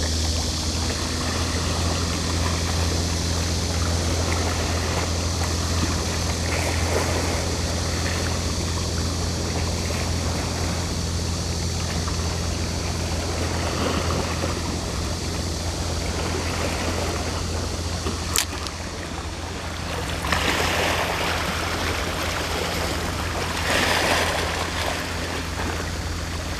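Seawater washing and trickling over shoreline rocks over a steady low hum, with two louder surges of wash near the end and a single sharp click shortly before them.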